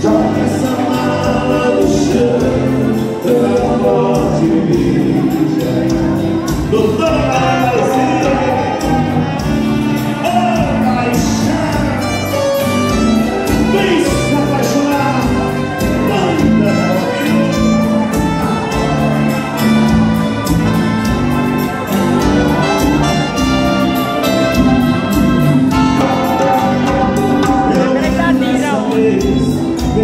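Dance band music with a singer: sustained chords and a bass line over a steady beat, a vocal melody running over them.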